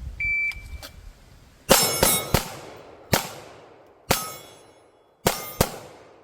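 Shot timer's start beep, then rapid pistol fire: three shots in quick succession, two more spaced about a second apart, and a final quick pair, each shot ringing out and echoing.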